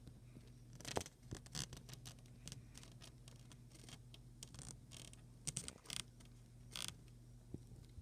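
Leopard geckos in their enclosure making irregular short scratching and crackling sounds, a few sharp ones at a time, over a steady low electrical hum.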